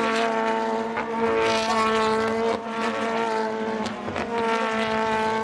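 Super GT race car engines running at high revs as the cars pass through the corner, a steady engine note that breaks briefly about two and a half seconds in and again near four seconds.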